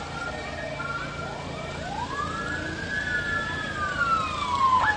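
Emergency vehicle siren wailing: one slow rise in pitch over the first couple of seconds, then a long steady fall.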